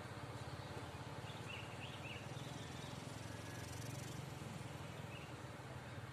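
Steady low diesel rumble of a standing passenger train idling, with a few short high bird chirps over it.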